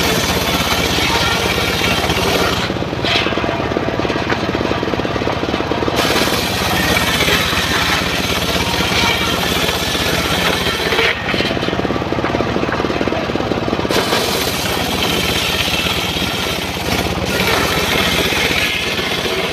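Homemade engine-driven circular saw bench ripping a timber plank lengthwise: the engine runs steadily under the hiss of the blade cutting wood. The high cutting noise eases off twice, for about three seconds each time.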